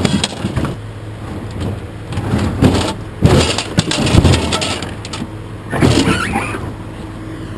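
Scrap metal being handled and unloaded: several irregular clanks and scrapes of metal, over a steady engine hum.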